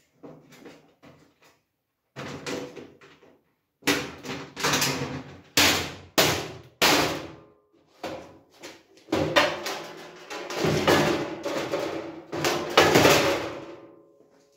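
Sheet-metal panels of a Parkside folding welding booth being folded down and shut: a run of metallic clanks, knocks and rattles, light at first and then busier and louder, loudest near the end.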